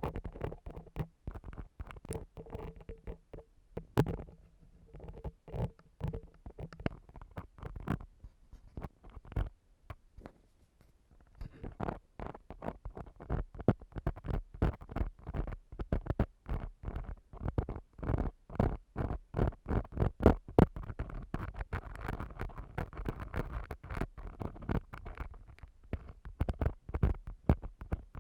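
An ear-cleaning tool scraping and rubbing on an ASMR microphone's ear, a dense run of short scratchy clicks and rustles. It thins out for a few seconds around the middle, then comes back thicker and steadier.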